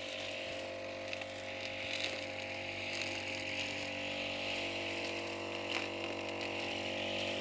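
Petrol brush cutter's small engine running at a steady speed, an even hum that holds one pitch throughout.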